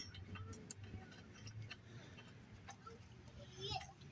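Faint, scattered light clicks and ticks of metal being handled as a new spark plug is threaded into the mower engine's cylinder head by hand.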